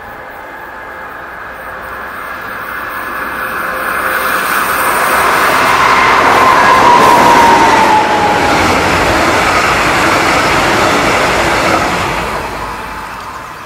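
DB class 218 diesel-hydraulic locomotive hauling double-deck coaches past: its V12 diesel engine grows louder as it approaches, a high tone drops slightly in pitch as it passes, and the coaches' wheels rush by and fade over the last couple of seconds.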